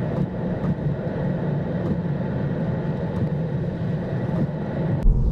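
Steady road and tyre noise inside the cabin of a Tesla electric car cruising at about 35 mph, with no engine sound. A deeper rumble comes in abruptly near the end.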